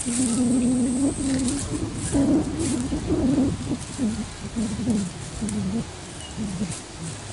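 A dove cooing: one long low note, then a run of shorter coos, several falling in pitch, that stop near the end.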